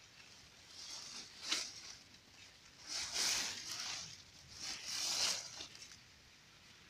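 Leaves and dry vine stems rustling as they are handled, in three short scratchy bursts.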